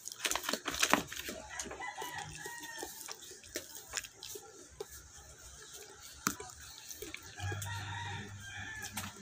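A rooster crowing, with a drawn-out call near the end. Sharp clicks of a fork and eating come about a second in.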